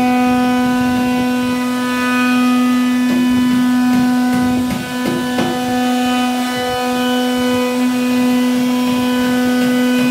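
CNC router spindle running at a steady high whine while its bit routs a raised-panel profile into a wooden door panel, with an uneven rasp of cutting.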